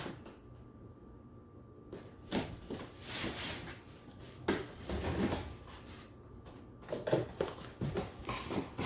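Cardboard boxes scraping and rustling as a plastic-wrapped inner box is worked out of a shipping carton by hand, with a few knocks of cardboard against cardboard. It starts about two seconds in and goes on in irregular bursts.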